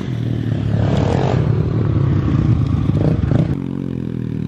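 Dirt bike engine running close by, its note shifting as the rider rides across the grass. About three and a half seconds in, it gives way to a steadier, lower engine note.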